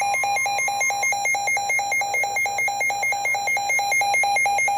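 Weather radio alert alarm sounding for a severe thunderstorm warning: a loud electronic tone warbling rapidly between two pitches, about five times a second. A fainter steady higher tone underneath fades out about a second in.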